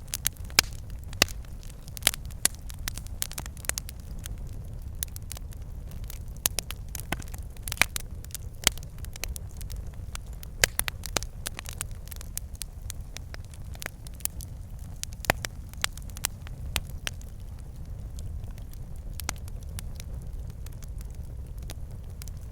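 Wood fire in a fireplace crackling and popping, with irregular sharp snaps over a steady low rumble of the flames; the pops come thicker in the first half and thin out toward the end.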